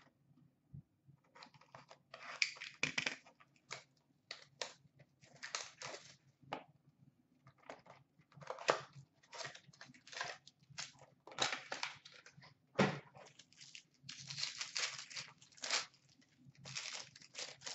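Hands tearing open a small sealed cardboard box of hockey trading cards and its wrapper: a string of short, irregular scratchy tearing and crinkling sounds over a faint steady hum.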